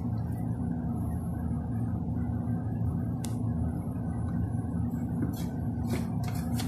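Steady low mechanical hum of running refrigeration equipment, with a few light clicks: one about three seconds in and several near the end, as the solenoid valve's plastic coil is handled.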